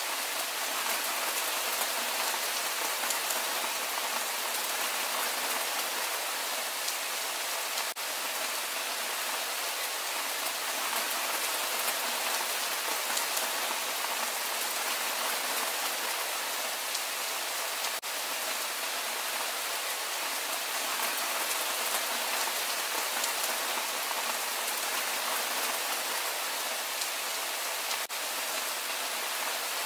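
Steady rain falling on fields and trees: an even hiss, mostly high with little low end, dipping briefly three times about ten seconds apart.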